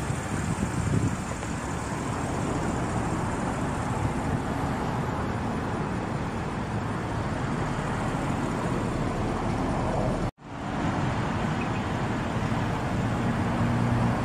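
Steady outdoor background noise, a traffic-like hiss over a low rumble, with no distinct events. The sound cuts out for a moment about ten seconds in.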